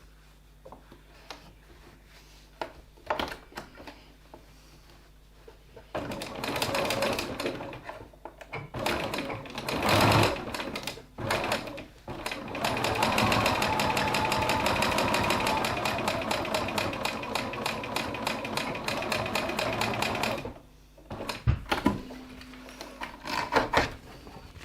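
Sewing machine topstitching through the layers of a fabric wallet. After a few light handling clicks it starts about six seconds in, runs in short stop-start bursts, then runs steadily for about eight seconds. It stops near twenty seconds, followed by a few sharp clicks.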